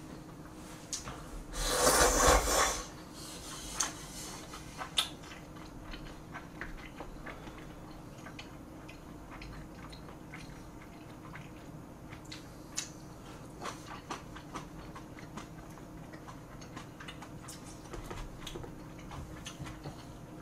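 A loud slurp of noodles about two seconds in, followed by scattered light clicks and taps of chopsticks against plastic takeout containers.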